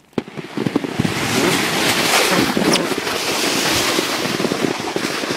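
Plastic sled sliding fast over snow: a loud, steady rushing noise with scattered knocks and clicks, building up in the first second.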